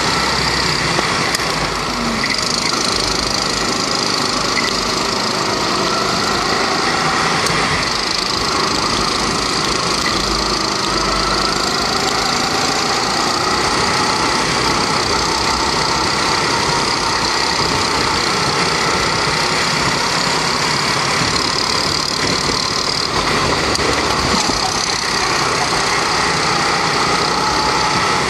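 Rental go-kart's Honda 270cc four-stroke single-cylinder engine running hard on track, heard from onboard the kart. Its pitch rises and falls slowly with the throttle as the kart goes down the straight and through the bends.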